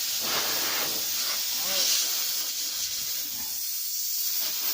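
Air hissing steadily out of a car tyre through its puncture hole, starting and stopping abruptly.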